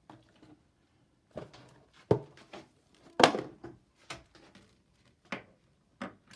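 Small plastic bidet fittings and hose being handled: a scattered string of clicks and knocks, the loudest about two and three seconds in.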